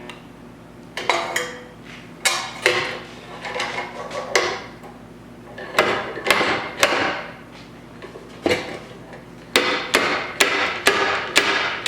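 A dozen or so sharp metallic knocks in irregular groups, each ringing briefly: a stud-welder dent puller's slide hammer yanking on a stud welded to the dent in a steel quarter valance to pull the dent out.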